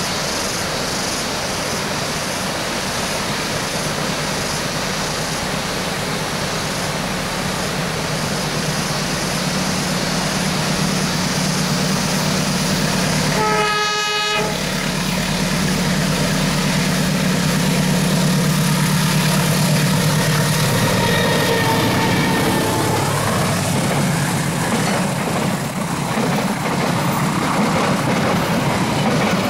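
Diesel-hauled passenger train approaching, its locomotive engine drone building steadily, with one short blast of the locomotive horn near the middle. After the locomotive passes, the coaches roll by close at hand, their wheels clattering on the rails.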